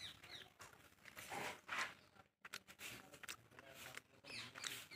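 Faint outdoor quiet with a few brief, distant bird chirps and scattered soft rustles.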